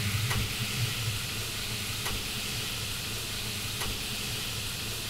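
Steamed sesame bao buns sizzling on a hot flat-top griddle: a steady hiss over a low kitchen hum, with a few light taps.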